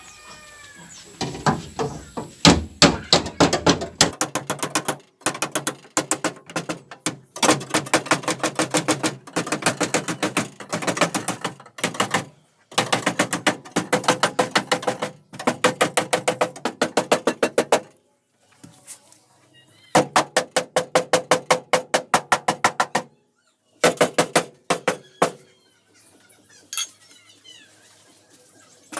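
Rapid hammer taps on sheet-metal car body, knocking out a dent, in quick bursts of a second or two with short pauses; each blow rings with a metallic tone.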